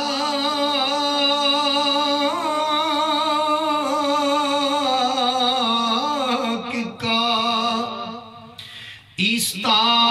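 A man's voice singing an unaccompanied Urdu devotional recitation through a microphone, drawing out long, wavering notes without distinct words. The voice falls away briefly about eight seconds in, then starts again.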